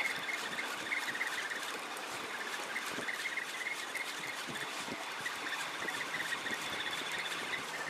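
Spinning reel cranked in spurts to bring in a hooked fish, its gears whirring in quick pulses, over steady wind and wave noise.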